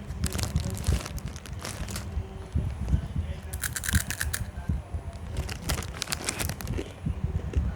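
Crunching and crackling in irregular bursts of rapid, crisp clicks, over a steady low rumble.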